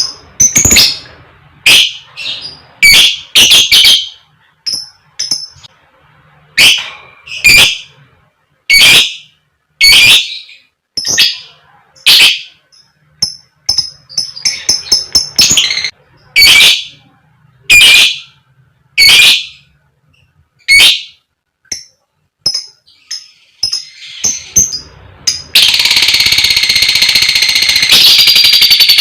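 Lovebird calling: loud, harsh, short 'koek' shrieks about once a second, mixed with quick 'cik' chips. About 25 seconds in it breaks into a long, unbroken, rapidly pulsing chatter, the kind lovebird keepers call ngekek.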